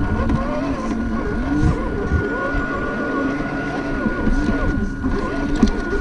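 Electric motor and gearbox of an RC4WD Trail Finder 2 scale crawler whining, the pitch rising and falling with the throttle as it drives over wet rocks, with a steady high whine underneath.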